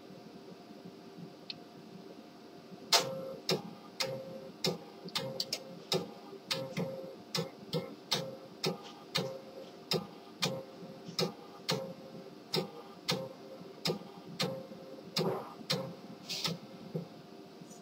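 HP LaserJet M1522nf laser MFP starting up and initialising: a steady machine hum, then from about three seconds in a run of sharp, fairly regular clicks, roughly one and a half a second.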